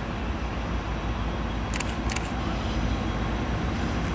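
Train running by with a steady low rumble. Pairs of short sharp clicks come about two seconds in and again near the end.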